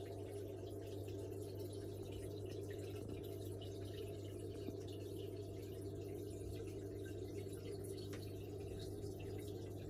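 Aquarium filter equipment running steadily in a small goldfish tank: a constant low hum with faint bubbling water.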